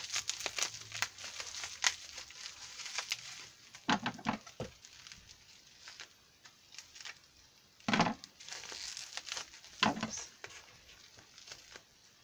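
Plastic packing wrap crinkling and rustling as it is pulled off wrapped glassware: dense crackling for the first few seconds, then a few separate louder rustles.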